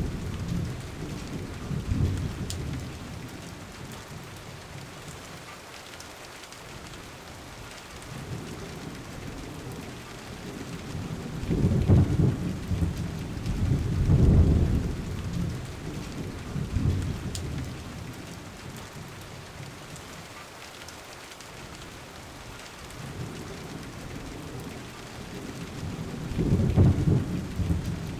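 Steady rain hissing, with low rumbles of thunder swelling and fading several times, loudest about twelve and fourteen seconds in and again near the end.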